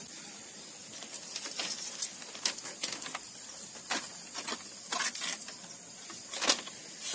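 Split bamboo strips being woven by hand into a wall panel: irregular clicks, scrapes and rustles as the slats knock and slide against each other.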